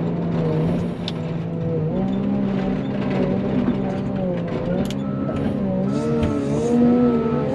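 Wheel loader's diesel engine heard from inside the cab, its pitch rising and falling as the throttle changes while plowing. From about five seconds in, a short high beep repeats roughly once a second.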